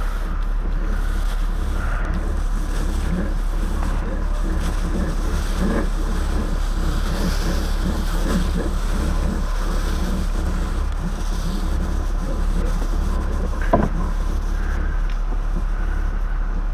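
Steady low engine-like rumble with no change in pitch, and a single sharp knock about fourteen seconds in.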